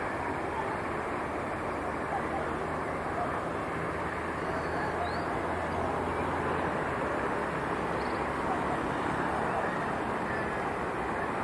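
City street ambience: a steady traffic rumble, with a low engine hum that stops about seven seconds in, and a couple of faint, brief bird chirps.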